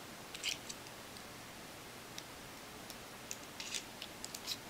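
Small, scattered clicks and rubs of a Neutrik cable jack's metal and plastic parts being handled and fitted together, a few near the start and a cluster in the last couple of seconds.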